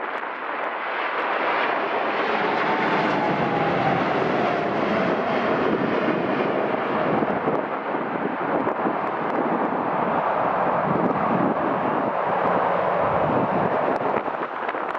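Airliner on approach passing close by, its engine noise a steady dense rush with a faint whine that falls slowly in pitch as it goes past.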